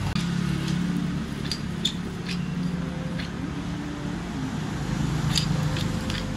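Street traffic hum with a motorbike engine running steadily nearby, and a few light clinks of metal utensils against a pan and a paper box.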